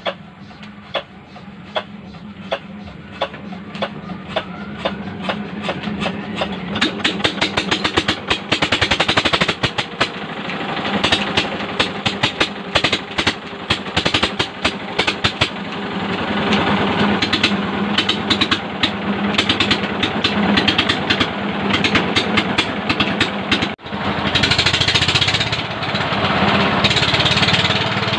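7 hp Yanmar single-cylinder diesel engine starting up. Slow, regular knocks quicken and grow louder as it comes up to speed, then it runs steadily.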